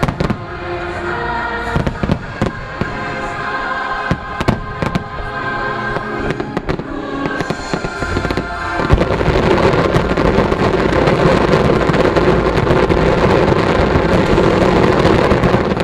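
Fireworks shells bursting, sharp bangs over the show's music. About nine seconds in, a dense barrage of crackling and booming takes over and is louder.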